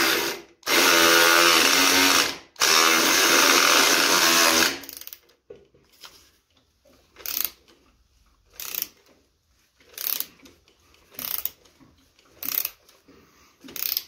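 A power drill runs in three spells of about two seconds each, with a steady whine. Then a ratchet wrench clicks in short strokes, one about every second and a half.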